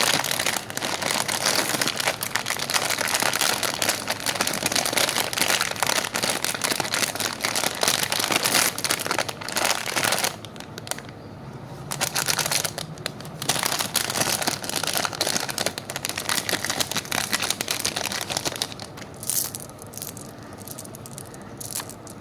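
Plastic candy wrappers crinkling as they are handled and unwrapped. The crinkling is dense for about ten seconds, then comes in scattered bursts with short pauses and thins out near the end.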